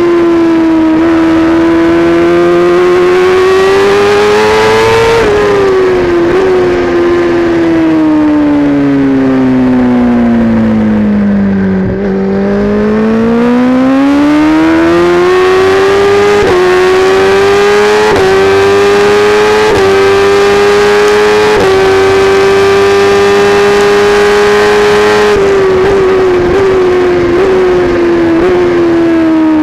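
Kawasaki Ninja ZX-10R inline-four with an Akrapovic exhaust at racing speed: the engine climbs in pitch, then falls for several seconds as the bike slows, and climbs again through a run of upshifts, each a sudden dip in pitch. Near the end comes a series of quick downshifts under braking.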